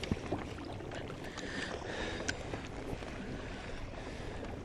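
Water lapping against a drifting kayak's hull, with a few faint ticks.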